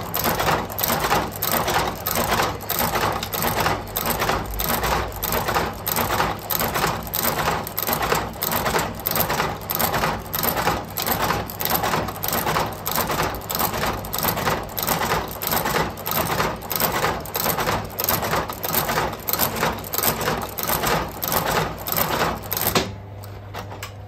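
Shoe sole-stitching machine sewing a new leather sole onto a shoe: an even run of mechanical clacks, about two stitches a second, over a steady motor hum. The stitching stops near the end while the motor keeps humming.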